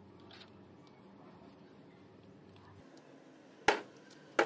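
Two sharp metallic clicks a little under a second apart near the end, as a small ball bearing is handled and set onto the shaft of an angle grinder's armature.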